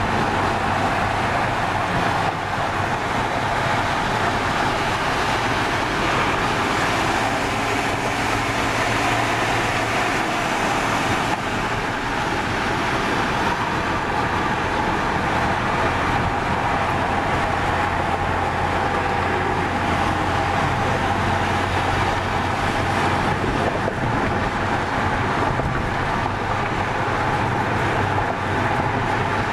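Steady road noise heard from inside a moving car's cabin: tyre and engine hum with no sudden events.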